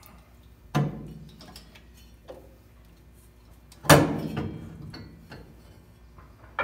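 Heavy metal clunks as a COOT ATV gearbox with its drive pulley is set down and shifted onto its mount in the steel body tub. There are two loud knocks about three seconds apart, the second ringing on for about a second, with lighter knocks between them.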